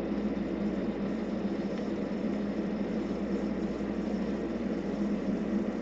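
TIG welding arc from an Eastwood TIG200 running on quarter-inch stainless steel plate, a steady hiss over a low hum with no break.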